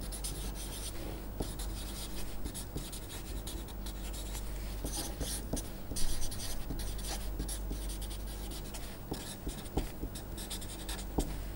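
Felt-tip marker writing on paper: a run of short scratchy strokes as words are written out, over a steady low hum.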